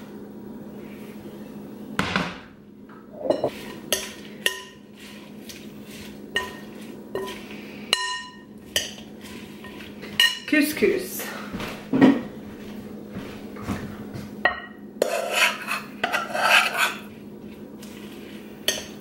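Kitchenware knocking and clinking against a large glass mixing bowl as a salad is tipped in and tossed, in scattered sharp strikes that come thicker in the second half. A faint steady hum runs underneath.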